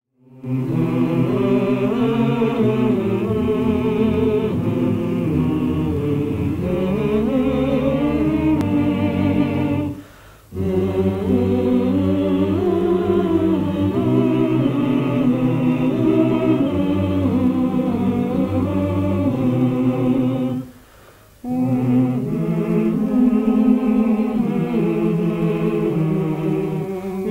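A choir singing, with two short breaks between phrases.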